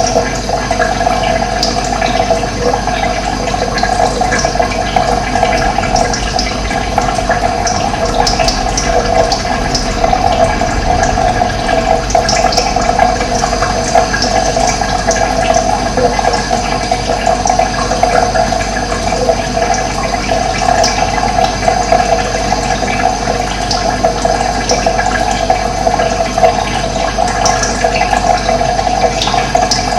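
Running water flowing steadily, with brief high bird chirps here and there.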